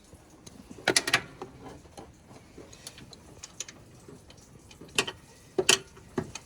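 Hand ratchet and socket working a 12 mm bolt, with sharp metallic clicks and clinks: a cluster about a second in, a few more near the end, and faint ticking between.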